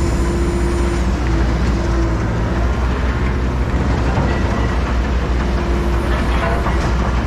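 Engine running steadily, a constant low hum under an even rumble.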